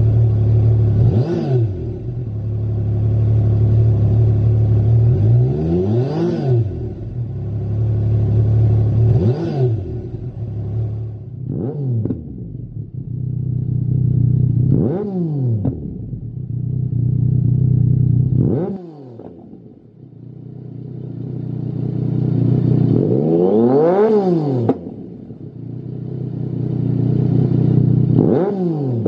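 Yamaha MT-09 Tracer's 847 cc inline three-cylinder engine idling and blipped about eight times, each rev a quick rise and fall in pitch, one longer, higher rev about three quarters of the way through. It sounds first through the stock exhaust and then through a Lextek GP1 aftermarket silencer.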